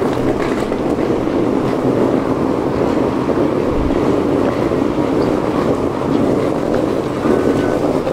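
A train running on the track close by, a loud steady rumble with faint ticks over it.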